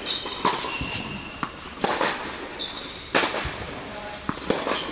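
Tennis ball struck by rackets and bouncing on an indoor hard court: sharp pops about every second and a half, echoing in the hall. Short high squeaks of tennis shoes on the court come between them.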